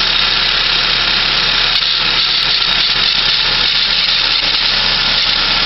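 1996 Saab 900S engine idling steadily, with a strange noise coming from the accessory belt and pulley area, its cause not yet known. The sound is constant, with a strong high-pitched rushing component over the low engine hum.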